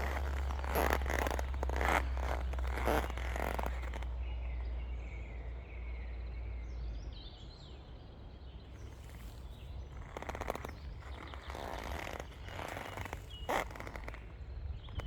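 Rubber boots creaking and squeaking step by step while walking. The steps pause for several seconds in the middle and resume about ten seconds in. Small birds chirp in the pause.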